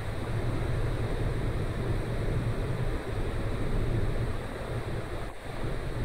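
Wind buffeting the microphone and the wash of the sea alongside a large car ferry under way, over a steady low rumble. The sound dips briefly just before the end.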